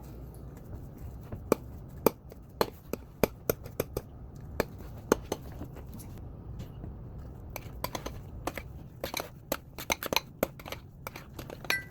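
Irregular sharp clicks and taps of kitchen utensils against dishes, sometimes in quick runs, over a low steady background hum.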